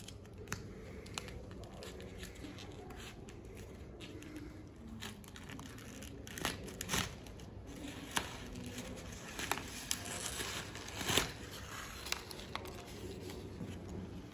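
Rustling and scattered light clicks of something being handled, busiest in the middle, over a low steady background.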